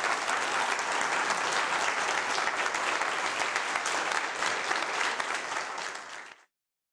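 Audience applauding steadily, a dense patter of many hands clapping that eases off slightly and then cuts off suddenly just before the end.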